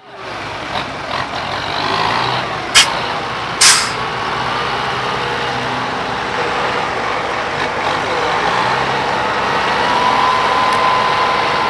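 Diesel engine of a six-wheel truck stuck in mud, running steadily. Two short, sharp noises come about three and four seconds in, the second a little longer.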